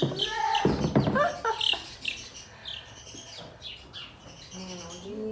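Three-week-old chicks peeping, with many short high chirps repeated throughout and a louder scuffle of handling knocks about a second in.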